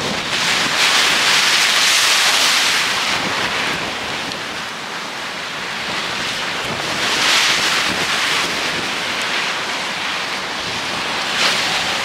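Sea waves surging and washing in at high water, with wind on the microphone. The rush swells loudest about a second in and again about seven seconds in.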